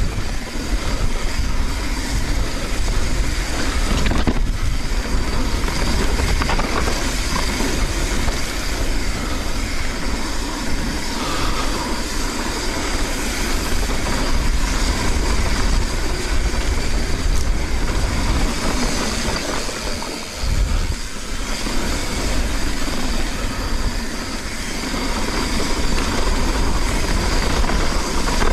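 Mountain bike riding fast down a rough dirt trail: a steady rumble and clatter of tyres on dirt and rocks, with the chain and frame rattling. It eases briefly about two-thirds of the way through.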